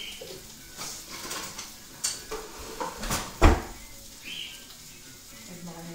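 Kitchen clatter: dishes and cutlery clinking now and then, with one sharp knock about three and a half seconds in.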